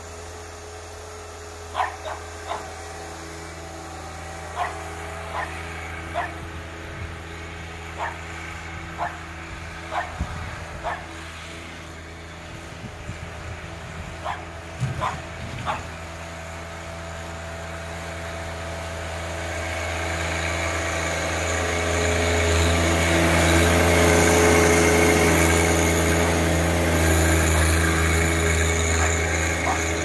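John Deere 1025R compact tractor's three-cylinder diesel engine running steadily, growing louder in the second half as the tractor drives closer. Over it, a dog barks repeatedly, in short single and paired barks, during the first half.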